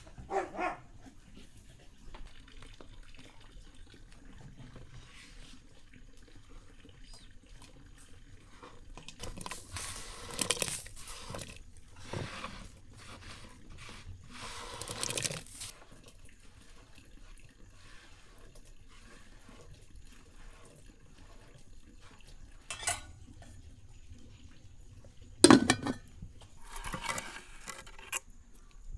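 Kitchen handling sounds: dishes, pots and utensils clinking and scraping, with short stretches of liquid noise. A single sharp knock late on is the loudest sound.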